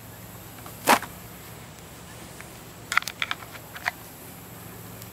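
Hard plastic knife sheath and knife clicking as they are handled: one sharp click about a second in, then a quick run of several clicks about three seconds in, over a faint steady low hum.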